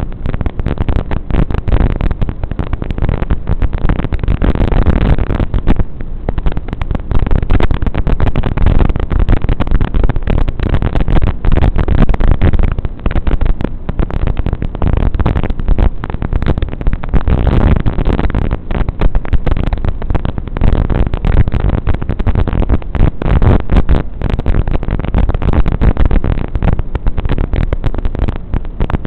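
Harsh, loud static hiss with constant crackling on the audio track of an analog FPV goggles' DVR recording. This is receiver noise from the analog video link, not a clean recording of the drone.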